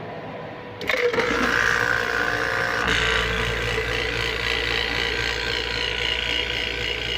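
Vacuum pump switched on about a second in and running steadily, with a deeper hum settling in about three seconds in, as it starts evacuating the reefer unit's refrigeration system after the compressor replacement.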